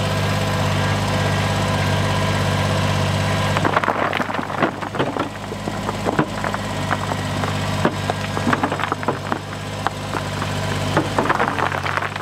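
Kubota compact tractor's diesel engine running steadily, then from about four seconds in a run of hard clattering knocks as its front-loader bucket dumps a load of rocks onto the rock pile, with the engine still running underneath.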